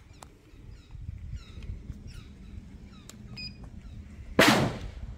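Dry-fire click of a Glock G17's striker as the trigger breaks under a digital trigger-pull gauge, loud and sharp about four seconds in. Faint bird chirps sound in the background before it.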